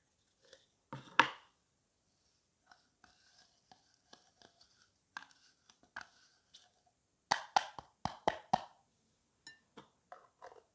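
A small plastic jar of foam beads being handled and tipped over slime: scattered light clicks and rattles of beads and plastic, with a quick run of sharper taps a little past the middle.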